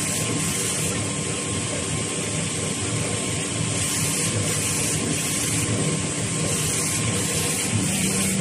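Automatic V-fold facial tissue production line running: a steady mechanical whir and clatter from the folding, cutting and conveying machinery, with a faint steady hum.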